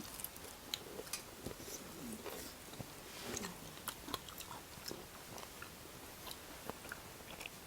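A person chewing and biting into fried chicken legs, bones included: scattered faint crunches and small clicks.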